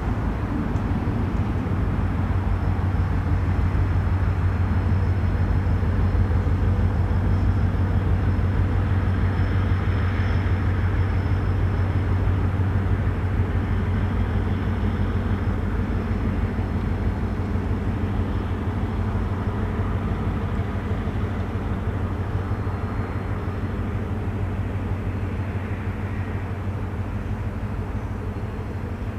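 Diesel freight locomotives running as the train moves by: a steady low engine drone that grows a little louder in the first few seconds, then slowly fades.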